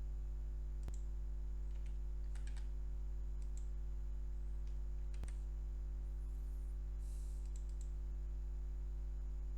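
Steady electrical hum from the recording setup, with a few scattered computer mouse and keyboard clicks.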